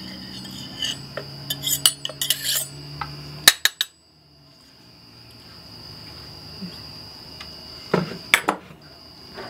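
A small metal hand tool scraping and clicking inside a framing nail gun's metal cylinder housing while a broken seal fragment is picked out. There are two sharp clicks about three and a half seconds in and a few knocks near the end as the tool is set down on a wooden bench. A steady high-pitched whine sits underneath.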